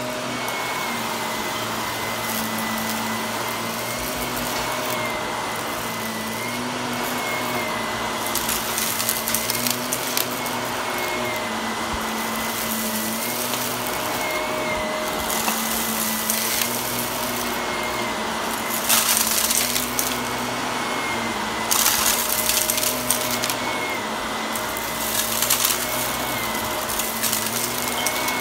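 Shark Navigator upright vacuum running steadily on carpet, its motor whine wavering slightly in pitch. Several short bursts of crunchy crackling come through as debris is sucked up.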